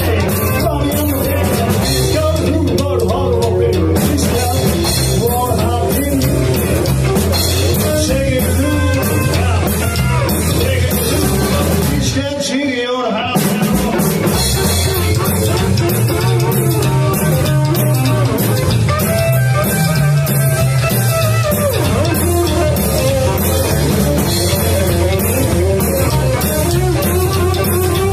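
Live rockabilly band playing: upright bass, hollow-body electric guitar and a standing drum kit with snare and cymbals, on a steady driving beat. About twelve seconds in the band drops out for about a second, then comes back in together.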